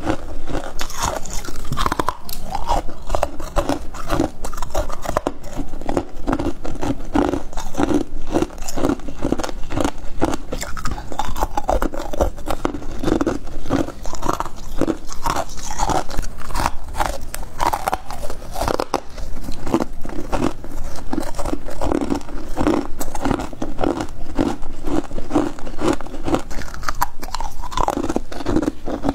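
Close-miked crunching of chunks of freezer frost being bitten and chewed, a dense run of crisp crunches with hardly a pause.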